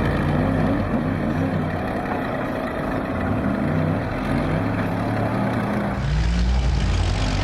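Bulldozer and jeep engines revving up and down under strain in a tug-of-war pull. The sound changes abruptly about six seconds in.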